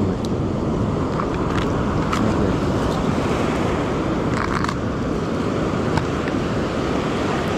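Steady rush of surf breaking on a sandy beach, with wind on the microphone. A few sharp plastic clicks and a brief rattle from a plastic lure box being handled and opened.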